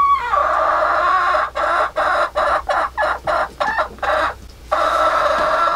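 Hen cackling loudly: a long drawn-out call, then a quick run of short clucks, then another long call near the end.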